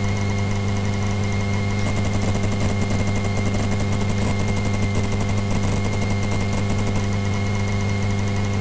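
Single-engine light aircraft's piston engine running steadily at low taxi power, an even drone with no change in pitch.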